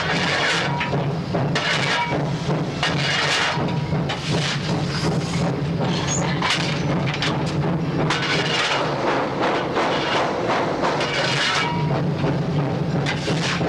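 Steam locomotive US Army 2-8-0 No. 610 working along, heard from inside its cab: a continuous loud rush of noise broken by repeated exhaust chuffs, about one a second, over a steady low drone.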